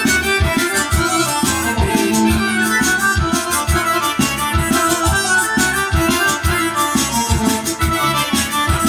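Kyuchek dance music played live on electronic keyboards: a busy melody of short notes over a steady drum-and-bass accompaniment from the keyboard's rhythm section.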